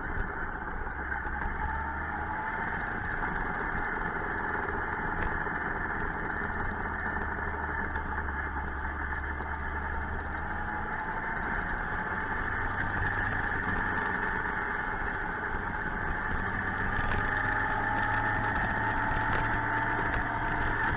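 Suzuki GSX-R 1000 inline-four engine running steadily while riding, its pitch drifting slowly up and down, under a wash of wind and road noise.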